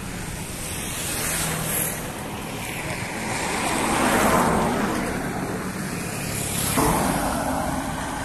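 Roadside traffic noise: a vehicle passes, the sound swelling and fading about halfway through, with another rise near the end, over steady wind noise on the microphone.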